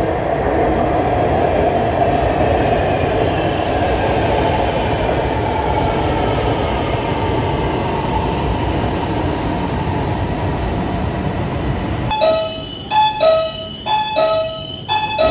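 Orange Line metro train running into a station: a steady rumble with a whine that falls slowly in pitch as it slows. About twelve seconds in, this gives way to a door-warning chime inside the car, short pitched beeps repeating about twice a second.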